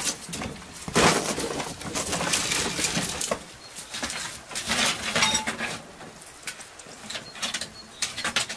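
Dry branches and twigs rattling, scraping and snapping as they are pulled from a pile and pushed into a clay tandoor pit, in a run of sharp irregular cracks with the loudest about a second in.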